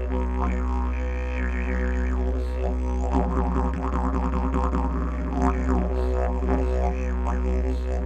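Didgeridoo playing a continuous low drone, its overtones sweeping up and down like changing vowels. From about three seconds in the playing turns into a faster rhythmic pulsing.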